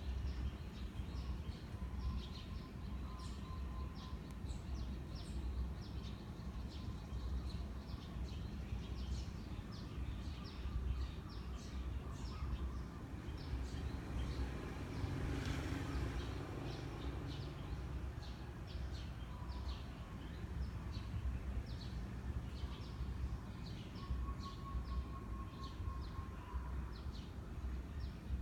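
Steady low rumble of a 56-inch Sunwindy ceiling fan running, with small birds chirping again and again in the background. A brief swell of noise rises and fades about halfway through.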